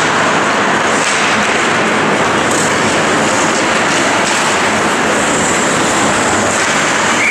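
Steady, loud wash of noise from an indoor ice hockey rink during play, with no single sound standing out.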